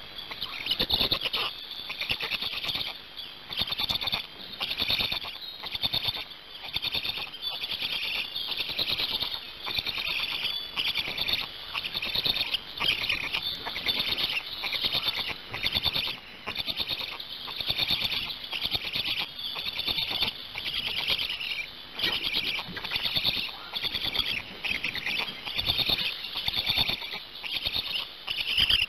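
Black stork chicks giving high-pitched begging calls in quick bursts, about one a second, starting suddenly.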